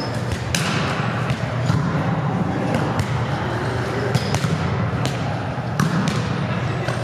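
Volleyball rally in a gymnasium: several sharp slaps of the ball being played, ringing in the hall, over steady chatter from players and onlookers and a low hum.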